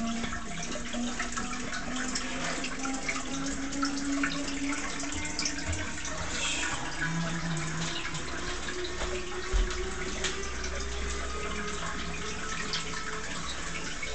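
Water running and trickling steadily from a feed pipe into a plant trough, with many small splashes and drips. A single low thump about ten seconds in.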